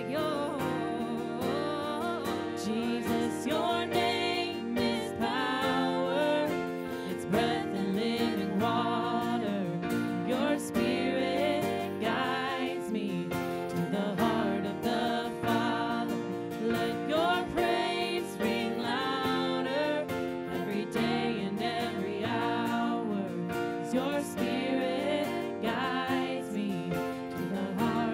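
Live worship song: women's voices singing together over strummed acoustic guitar and keyboard.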